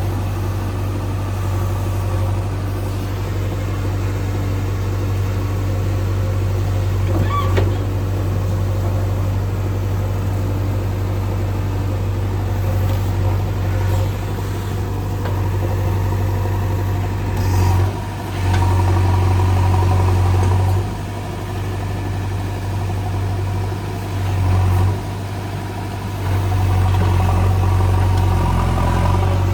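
JCB 3DX backhoe loader's diesel engine running steadily while digging and levelling soil. It grows louder several times in the second half, as the engine takes load, then drops back.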